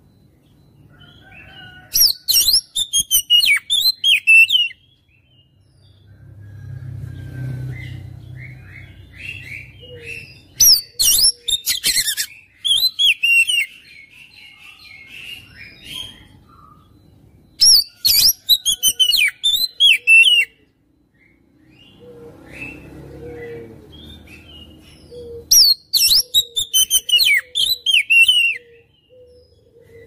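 Oriental magpie-robin (kacer) singing in four loud bursts of rapid, sharp, sweeping high notes, with softer twittering in between.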